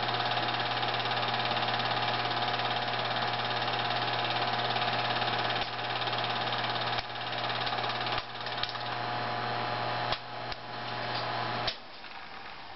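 Home-movie film projector running: a steady motor hum with the rapid clatter of film through the gate, and a few sharp clicks in the second half. Near the end the clatter cuts off as the film runs out of the projector.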